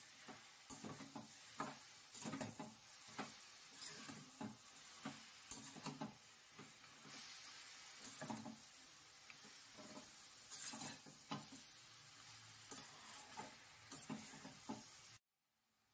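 Metal spatula stirring and scraping shredded cabbage and fish heads around a stainless steel kadai: irregular scrapes and light taps over a faint steady sizzle. It cuts off abruptly about a second before the end.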